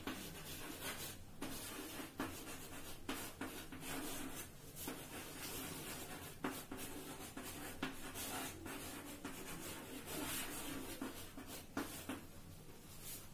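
Chalk writing on a chalkboard: a steady scratching of the chalk against the board, broken by many short taps as each stroke lands. It dies away about a second before the end.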